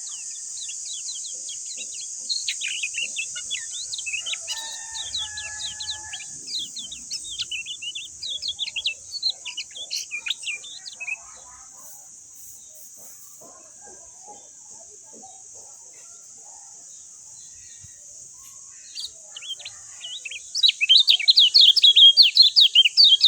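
Kecial kuning (white-eye) singing in quick, high twittering chirps, which fade out midway and then return near the end as a louder, denser run of rapid chirping, over a steady high hiss.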